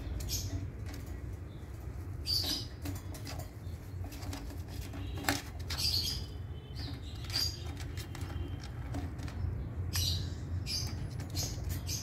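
Rose-ringed parakeets, an adult and its chicks, at a wire cage: short, scattered squeaks and fluttering, a brief burst every second or so, over a steady low rumble.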